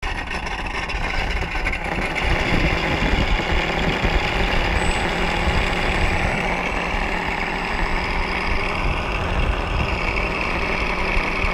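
Wind buffeting the microphone: a steady rush with an uneven low rumble.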